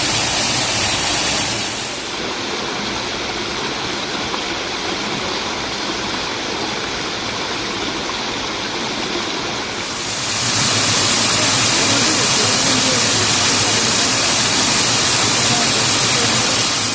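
Mountain stream rushing and splashing over rocks in a steady torrent. It turns quieter and less hissy about 2 s in, then louder and hissier again about 10 s in.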